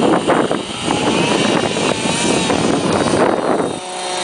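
Engine of an RC pylon racer plane flying past overhead, a thin high whine that wavers in pitch, over a loud rushing noise.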